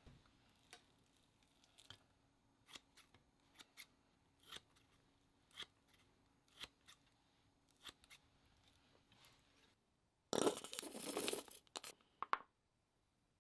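Kitchen scissors snipping thin slices of raw beef belly, a run of sharp snips about one or two a second. Near the end comes a louder, noisy squelching burst from a tube of grated garlic paste being squeezed into a metal measuring cup, followed by a couple of short squelches.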